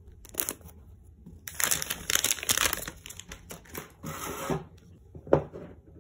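Plastic shrink wrap on a phone box being slit and torn off, crinkling loudly in a couple of stretches. A single sharp knock comes near the end as the box is handled.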